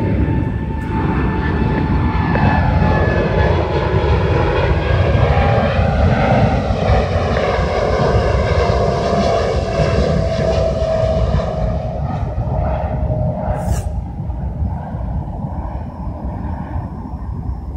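Aircraft passing overhead, its engine drone falling slowly in pitch as it goes by and fading near the end.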